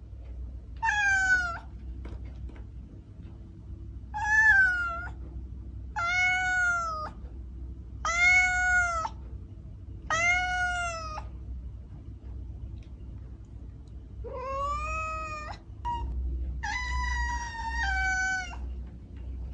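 Kitten meowing repeatedly: about seven high-pitched mews, each under two seconds and arching up then down in pitch, one to three seconds apart, with a longer, broken call near the end.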